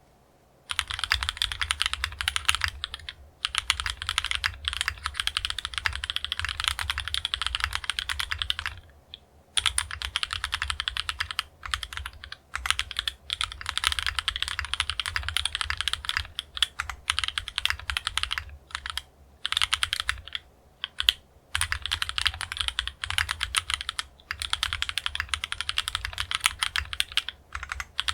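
Fast typing on a KMG B60 R1 mechanical keyboard with TTC Tiger switches, an aluminium plate with Poron plate foam, memory foam in the case and OTC MODO Light keycaps: rapid runs of keystrokes broken by several short pauses of under a second.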